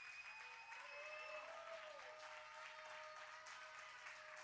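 Faint applause from a church congregation, with a few soft held musical notes underneath.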